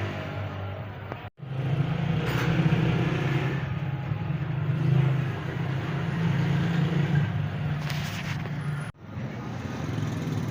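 Motor vehicle engine running steadily with street traffic noise around it, cut off abruptly twice, once about a second in and again near the end.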